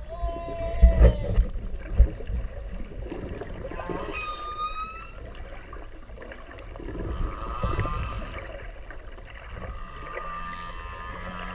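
Whale calls: a pitched moan at the start that bends down and breaks off, a short rising call about four seconds in, and fainter calls later, over a low rumble with a few thumps in the first two seconds.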